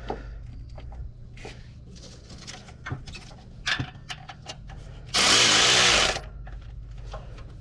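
A power tool runs in one burst of about a second a little past the middle, tightening a bolt on the A/C hose fitting. Before it come scattered light clicks and knocks of tools and parts.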